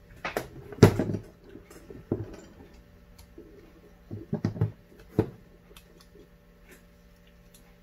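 Short metallic clicks and knocks from small parts on a Holley double-pumper carburetor being handled and fitted by hand. The loudest, sharpest click comes about a second in, and a few more follow around two, four and five seconds in.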